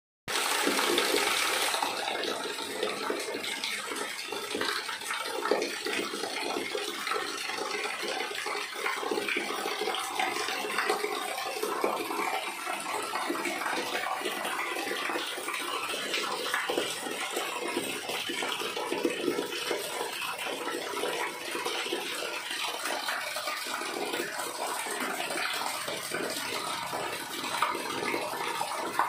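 Rainwater from a terrace drain outlet pouring down a wall into a floor drain channel: a steady rush of running water, a little louder for the first second or so.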